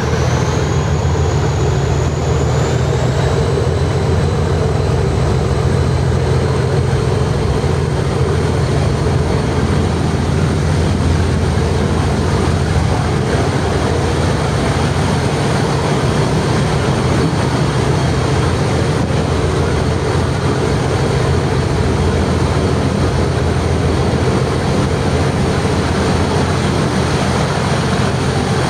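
English Electric 12CSVT diesel engine of Class 37 locomotive 37263 running steadily and loudly. A high turbocharger whistle rises in pitch over the first few seconds, then holds steady.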